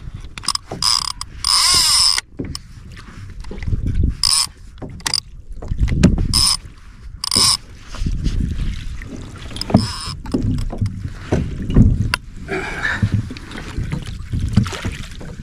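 Irregular knocks, thuds and short scraping, splashy bursts as gear and a freshly landed fish are handled aboard a kayak.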